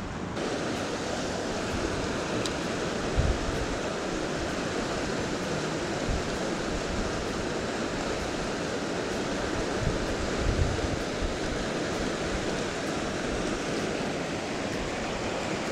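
River water rushing steadily over rocks, with a couple of brief low bumps about three and ten seconds in.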